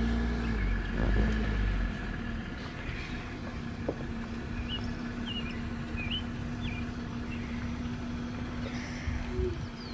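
A vehicle engine, most likely the Jeep Wrangler's, idling with a steady, even hum, with a heavier low rumble over the first two seconds. A bird chirps four short calls in the middle.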